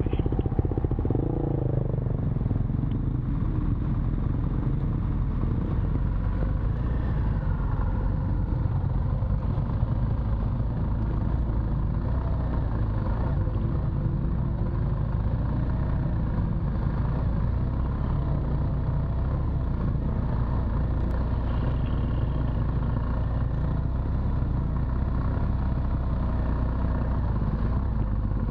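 BMW R1200 GS Adventure's boxer-twin engine running as the bike rides a dirt trail, with a heavy low rumble throughout. The engine's pitch drifts up and down as the throttle changes.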